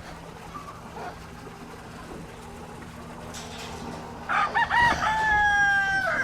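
A rooster crowing once, starting about four seconds in: a few short broken notes, then one long held note that falls slightly and stops abruptly.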